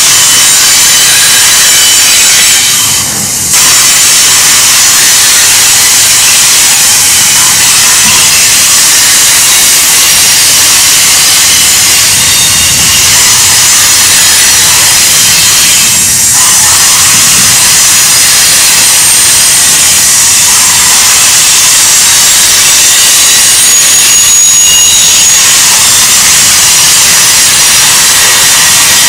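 Steel wheels of a double-stack intermodal freight train rolling past on a curve: a loud, steady, high-pitched hiss and grind of wheels on rail, with thin squealing tones that come and go.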